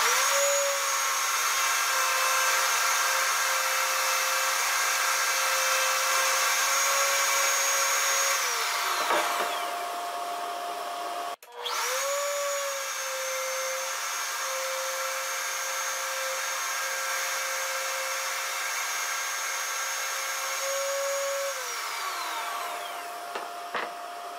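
Table-mounted router spinning up and running at speed with a steady high whine while it routes a shallow groove in an MDF board. It winds down about eight seconds in. After an abrupt cut it starts again, runs, and winds down near the end. A steady dust-collector hum carries on underneath and is heard alone while the router coasts down.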